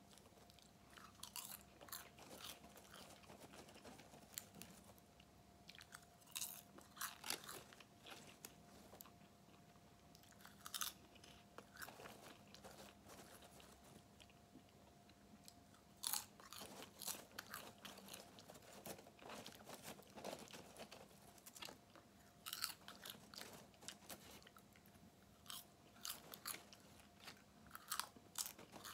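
Close-up chewing of popped popcorn: irregular crisp crunches, some louder than others, over a faint steady hum.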